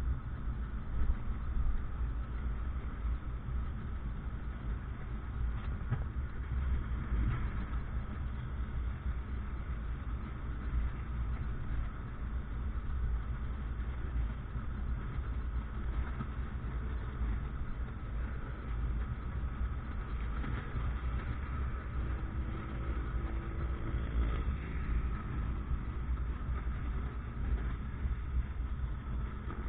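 A motorcycle on the move in street traffic: the engine runs under a steady low rumble, with the noise of other vehicles around it.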